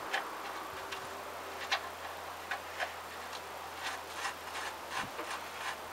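Light metal clicks and ticks at irregular intervals as bolts are threaded back by hand into a motorcycle's frame bracket.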